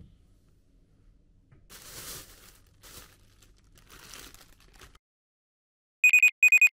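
Packaging crinkling in three short rustles, then a sudden cut to silence. Near the end come two short, bright electronic chime beeps.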